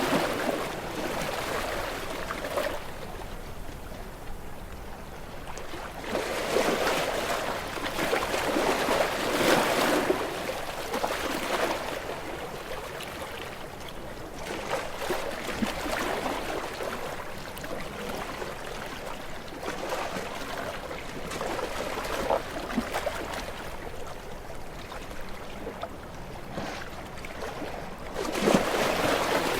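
Small waves washing onto a shore and draining back, swelling and fading every few seconds, with the biggest surges about a third of the way in and near the end.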